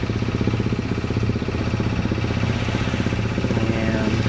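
Sailboat's engine running steadily under way, a constant low hum with a fast, even beat.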